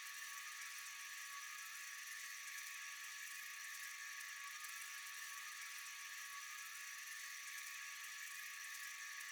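Steady chorus of night insects such as crickets: a faint, even, high-pitched trilling hiss with a thin steady tone underneath, unchanging throughout.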